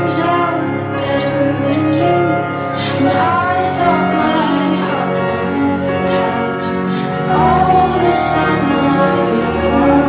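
Background music: a home-made remix of a pop ballad, with a female voice singing over sustained chords.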